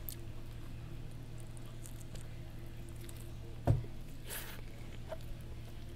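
Quiet room tone with a steady low hum, broken a little over halfway through by a short soft thump, then a brief breathy hiss and a faint click close to the microphone.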